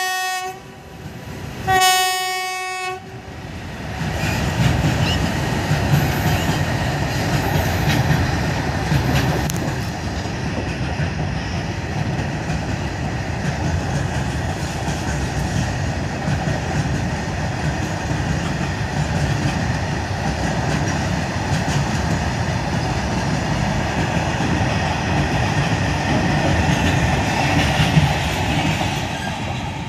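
A long freight train of covered goods wagons rolling past at speed: a steady rumble and rattle of wheels on the rails. A short train horn blast sounds about two seconds in.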